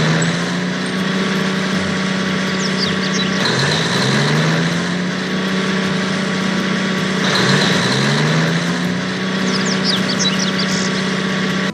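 An engine running, its pitch climbing and then holding steady, three times over at about four-second intervals, with a few faint high chirps.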